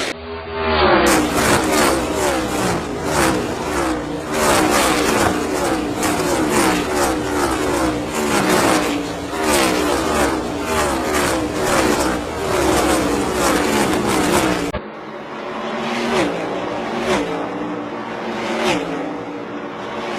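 NASCAR Next Gen stock cars' pushrod V8 engines at racing speed, loud and continuous, with the pitch repeatedly sweeping as cars rush past. The sound changes abruptly about a second in and again near the end, as one recording gives way to another.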